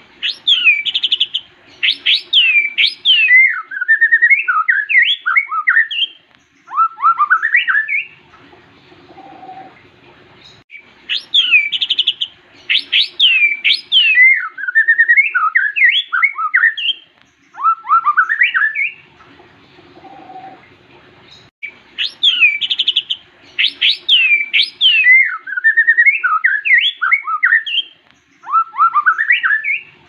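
White-rumped shama singing: a long phrase of loud, clear whistled notes gliding up and down, opening with a fast trill. The same phrase comes three times, about ten seconds apart, with short pauses between.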